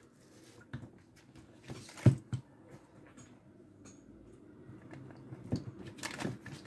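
Faint, scattered taps and clicks of hands and a multimeter probe handling a circuit board on a workbench, with one sharper knock about two seconds in.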